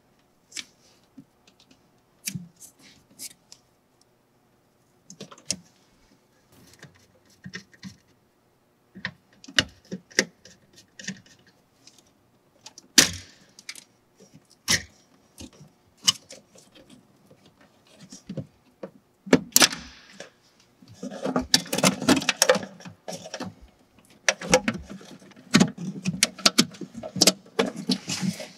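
Scattered small clicks and taps of a screwdriver on terminal screws and loose wire ends in an electrical control cabinet, then, for the last third, a dense rustling and scraping as a bundle of disconnected motor wires is pulled back through the cabinet.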